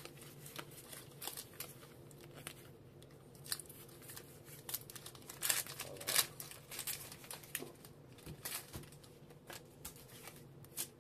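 Pokémon trading cards being handled: flicked through in the hands and dropped onto piles on a table, making a run of light clicks, snaps and rustles, with a few sharper snaps about halfway through, plus some crinkling.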